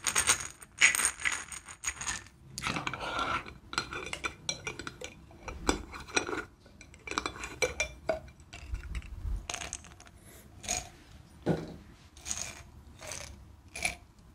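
Brown medicine bottle handled close to the microphone: its contents rattle and clink, densely in the first couple of seconds, followed by scattered sharp clicks as the cap is twisted.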